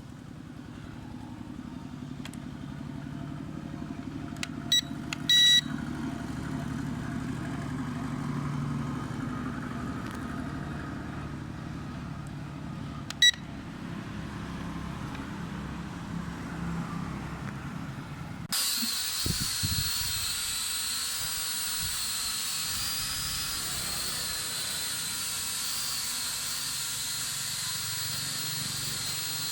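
A few short electronic beeps over a low rumble, then about two-thirds of the way in a toy quadcopter drone's motors start suddenly: a high, wavering whine over the hiss of its propellers.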